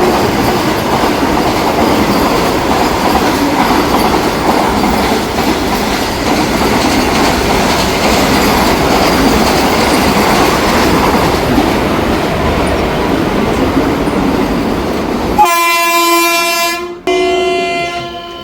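A train running past at speed, its wheels and wagons making a loud, steady rushing noise on the rails. About fifteen seconds in, the rail noise stops suddenly and a locomotive horn sounds two long blasts.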